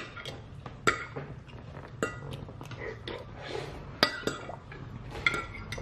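Cutlery clinking against plates during a meal: about half a dozen sharp clinks, each with a brief ring.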